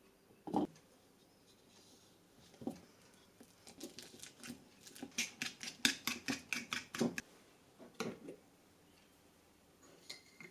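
Small handling sounds: a single knock, then a quick run of light clicks or taps, about five a second, for some three seconds, followed by a couple more knocks.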